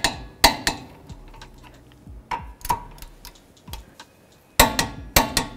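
Click-type torque wrench with a 17 mm socket tightening the front brake caliper bracket bolts to 80 foot-pounds: sharp metallic clicks in small clusters as it ratchets and clicks over at the set torque.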